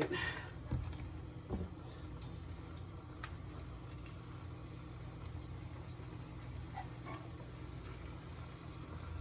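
Quiet kitchen background: a steady low hum, with a few faint light clicks in the first few seconds.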